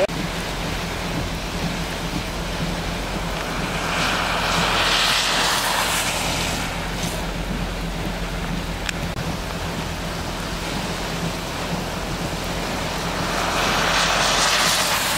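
Steady heavy rain falling on a wet road, with the swelling hiss of vehicle tyres driving through standing water: one about four seconds in and another building near the end.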